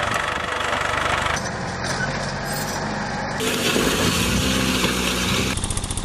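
Small tractor engines running as they work soil-tilling and ploughing implements, in several short clips that change abruptly about every two seconds. Near the end the engine sound turns to a fast, even pulsing.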